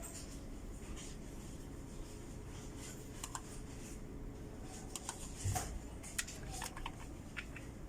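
Sparse light clicks and taps over steady room hum, thickening in the second half, with one duller knock about five and a half seconds in.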